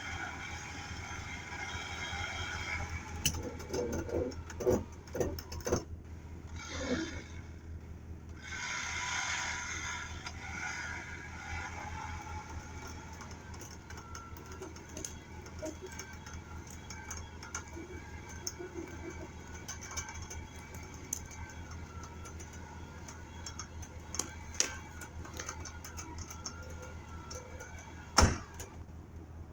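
An engine idling steadily, with scattered metallic clanks and knocks and one sharp bang near the end.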